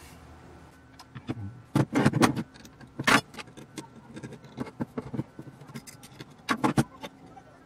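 Metal clicks, knocks and clinks of a small metal electronics module being handled and set down on a bench. There is a cluster of knocks about two seconds in, a sharp one at about three seconds, and another cluster near the end.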